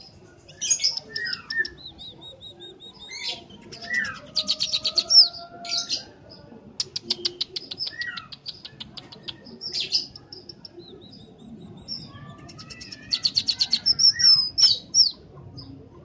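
Scaly-breasted munia singing: high thin whistled notes, fast runs of dry ticks and short down-slurred notes, in several phrases.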